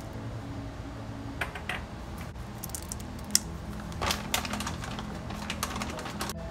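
Frozen berries and chopped pecans tipped into a coconut-shell bowl: quick clusters of small clicks and taps, in three bunches, the busiest in the second half.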